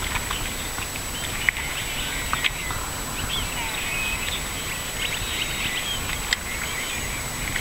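Small birds chirping and twittering in many short calls over a steady low background noise, with a few faint clicks.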